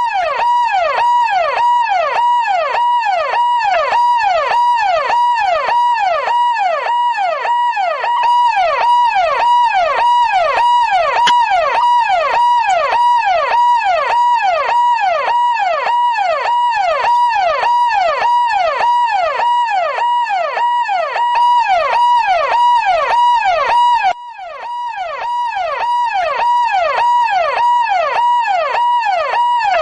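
Police car electronic siren wailing in fast, repeating up-and-down sweeps, about one and a half a second, over a steady high tone. About 24 seconds in it drops out abruptly and builds back up to full level.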